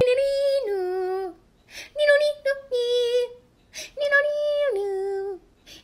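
A high voice sings a short melody in three phrases. The first is a held note that steps down to a lower held note, the second is a run of shorter notes, and the third repeats the first phrase.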